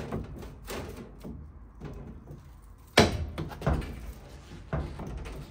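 Thin stainless steel sheet being positioned in a manual sheet metal folding machine: a few light knocks, then a sharp loud knock about three seconds in, followed by two smaller ones.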